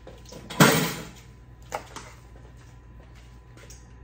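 Plastic safety knife chopping a bell pepper on a plastic cutting board: one loud knock about half a second in and a lighter one about a second later.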